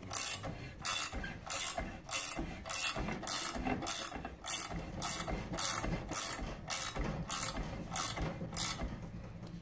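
Ratcheting wrench clicking in quick repeated strokes, about one and a half a second, as it turns the roller shaft of a small hand slip roller to feed a steel strip through the rollers. The clicking stops shortly before the end.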